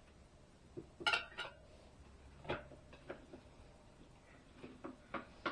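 Scattered light metallic clinks and knocks from work on a motorcycle wheel rim as a tire is being mounted over the rim lock, a small cluster about a second in and a few more near the end.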